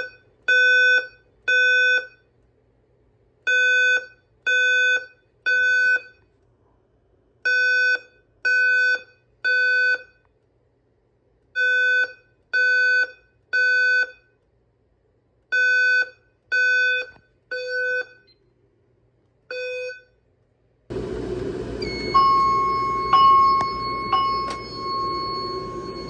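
Simplex TrueAlert speaker strobe sounding the temporal-three evacuation tone: groups of three half-second beeps, a pause, and again, which stops about twenty seconds in. After that, over room noise, a steady tone sounds with short beeps on and off.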